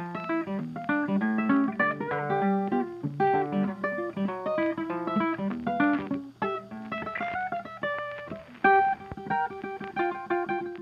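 Background music: a plucked guitar playing quick runs of notes, thinning to sparser single notes near the end.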